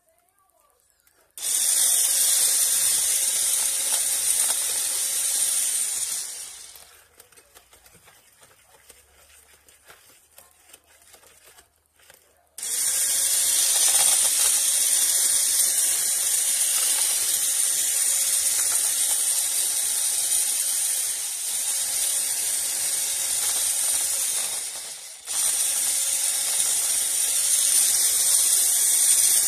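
Electric hand mixer beating cake batter as flour is worked in. The motor runs steadily for about five seconds, stops for about six seconds, then starts again and runs on, cutting out briefly near the end.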